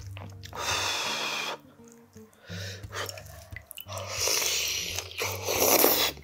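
A person slurping noodles from a spicy stew: a long, noisy slurp about half a second in, then a louder, longer slurp from about four seconds in, over background music.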